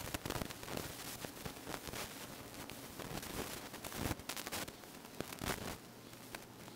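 Faint rustling and crackling from a handheld camera being moved around, with irregular small clicks over a steady hiss and a faint low hum.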